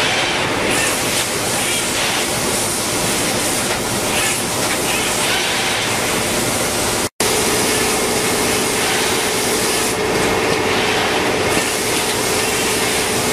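Steady machinery noise from an automated plant-bedding line running. The sound breaks off for an instant about seven seconds in, and after that a steady hum joins.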